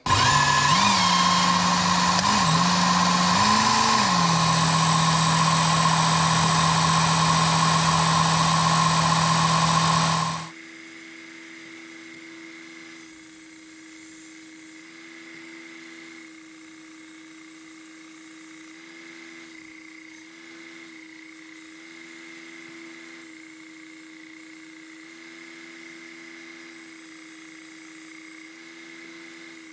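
Work Sharp Ken Onion Elite belt sharpener's motor starting and running loud, its pitch dipping and rising a few times in the first seconds before holding steady. About ten seconds in, the sound drops abruptly to a much quieter steady motor whine, with a lower tone coming and going as a knife's heel is ground on the abrasive belt.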